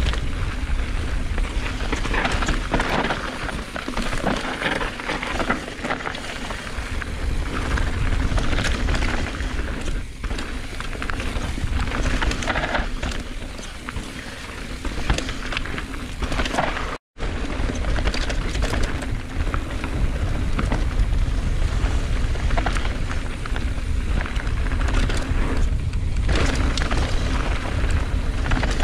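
Mountain bike riding fast down a rough trail, recorded by an action camera: wind buffeting the microphone in a steady low rumble, with tyres on dirt and stones and the bike rattling and knocking over bumps. The sound cuts out for a split second about 17 seconds in.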